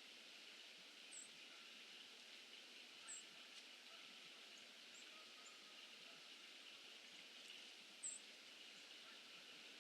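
Faint, distant birds chirping: three short high chirps about a second, three seconds and eight seconds in, with a few fainter calls between, over steady outdoor hiss.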